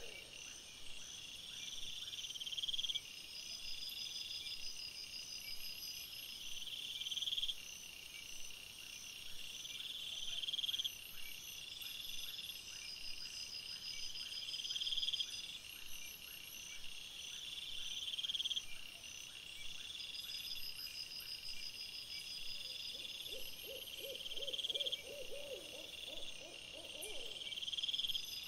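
Night chorus of insects chirping in long, regular trains, one about every four seconds, with an owl giving a quavering hoot lasting a few seconds near the end.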